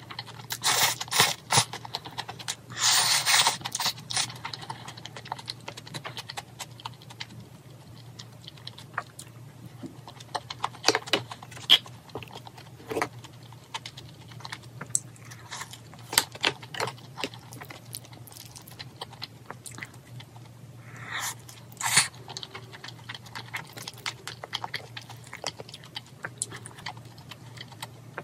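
Close-miked eating of jjajangmyeon (black bean sauce noodles): noisy slurps of noodles, loudest near the start and again about three quarters of the way through, between stretches of chewing with scattered small clicks and crunches.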